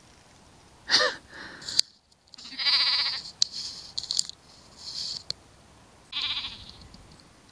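Sheep bleating: three loud, wavering calls a couple of seconds apart, about a second in, around three seconds and around six seconds, with quieter calls between them.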